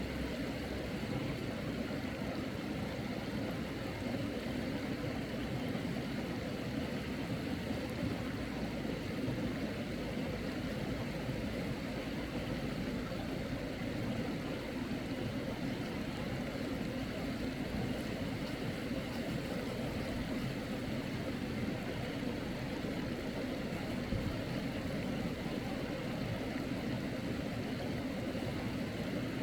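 Steady rushing of a clear mountain stream, an even water noise with a low rumble and no breaks.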